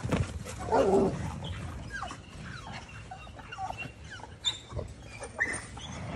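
American Bully dogs play-fighting, growling and grunting at each other, with the loudest burst about a second in.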